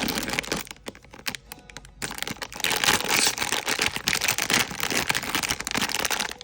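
Plastic blind-box packaging crinkling and crackling as it is handled and opened, in two loud stretches with a quieter gap about a second in.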